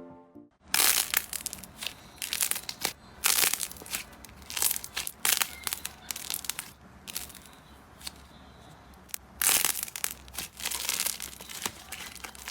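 Slime being pressed and squeezed by hand, making irregular crackling, crunching bursts in clusters, with a quieter stretch around the middle.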